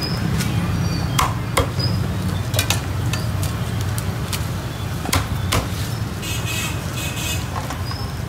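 Cleaver chopping roast pork on a wooden chopping block: a few separate sharp knocks, the clearest a pair about a second in and another pair about five seconds in, over a steady low background hum.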